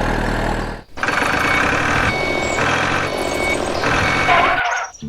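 Heavy vehicle engine running with a reversing beeper sounding over it; the sound drops out briefly about a second in and stops suddenly near the end.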